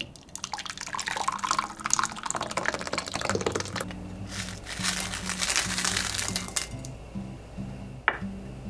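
Crackling, liquid noise, then background music with a low, steady bass line coming in about four seconds in, with another stretch of the same noise over it.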